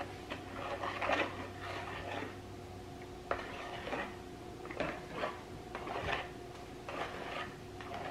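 A spatula stirring and scraping around a plastic mixing bowl of oils and lye solution with lumps of unmelted coconut oil: irregular scrapes and light knocks against the bowl's sides, a few each second at times.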